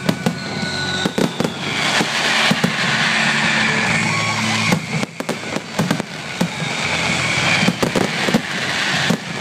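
Fireworks display going off at close range: a rapid, irregular string of sharp bangs over a continuous crackling hiss, with a few whistling tones among them.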